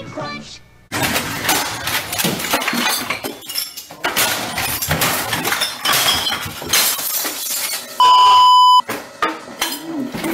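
Objects being smashed: repeated crashing, clattering and breaking glass starting about a second in. Near the end comes a loud steady one-pitch beep lasting just under a second, a censor bleep.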